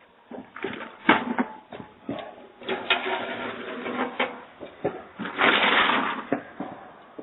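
Scattered knocks and clicks with stretches of rustling noise, heard through a doorbell camera's microphone; the loudest is a rush of about a second, about five and a half seconds in.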